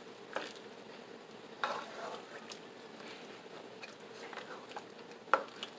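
A spoon stirring chicken curry with potatoes in a pot, with a few knocks of the spoon against the pot. The loudest knock comes near the end.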